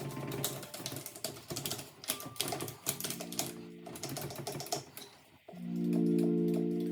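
Pfaff tipmatic 6110 sewing machine running and stitching, a rapid mechanical clatter of needle and feed strokes. Background music plays throughout, with a sustained chord becoming the loudest sound from about five and a half seconds in.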